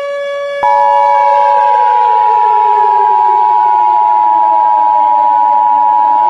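Emergency Alert System two-tone attention signal: a loud, steady dual-tone beep that starts about half a second in, after a click cuts off the previous steady tone. Under it a wailing siren glides slowly down in pitch and starts to rise again near the end.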